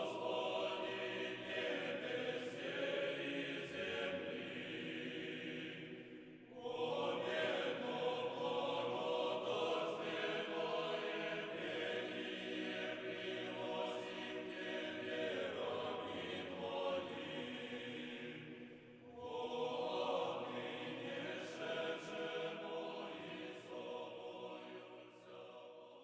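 Choral chant sung as background music, in long phrases with short pauses about six and a half and nineteen seconds in, fading out at the end.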